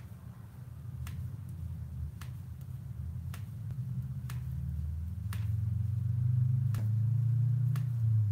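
Metal circular knitting needles clicking together as stitches are knit, about once a second, over a low hum that swells in the second half.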